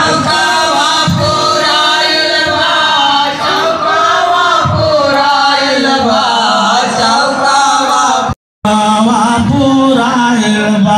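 Devotional bhajan kirtan: voices chanting and singing together over music. It breaks off into silence for a moment about eight seconds in.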